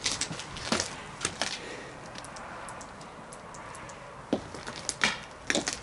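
Footsteps crunching and scuffing irregularly on gravel and concrete, with a couple of louder knocks about four and five seconds in.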